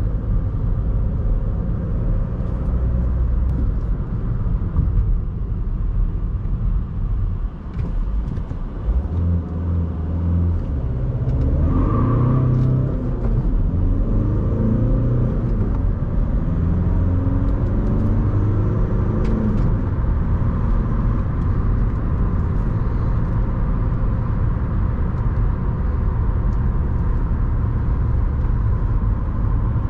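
Audi A1's 1.6 TDI four-cylinder diesel running with a low rumble, then pulling hard from a standstill. The engine note rises in about three climbs through the gears of its manual gearbox, then settles into a steady drone at speed.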